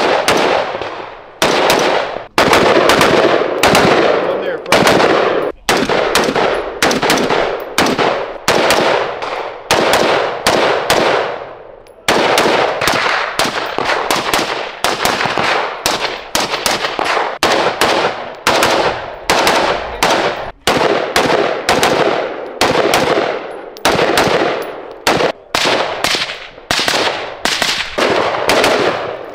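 AR-15-style rifles fired semi-automatically in fast strings of shots, each sharp crack trailing off before the next, with a few brief pauses between strings.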